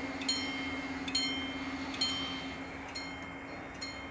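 Level-crossing warning bell ringing, a repeated single ding a little under once a second, five strikes in all, over a steady low hum.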